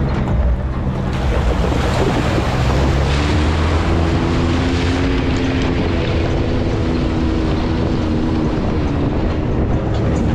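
Side-by-side UTV engine running under way on a dirt trail, its note rising a little about three seconds in, with heavy wind and rushing road noise over the microphone.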